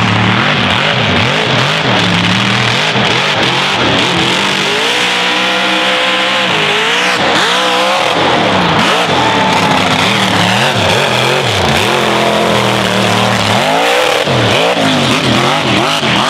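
Big Guns 2100-horsepower mega truck's engine under full throttle, revving up and down repeatedly, its pitch climbing and dropping several times as the big tires spin through the dirt.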